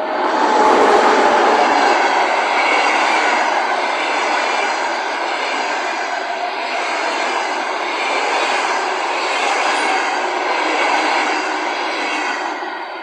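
Passenger train hauled by an EP1P electric locomotive passing at speed. A steady, loud rush of wheels on rail comes up suddenly at the start and falls away near the end as the train clears.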